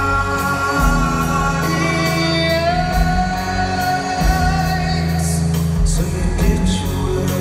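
Live rock band playing: a male singer holds long sung notes over guitars, bass and drums, his voice stepping up in pitch a little before halfway.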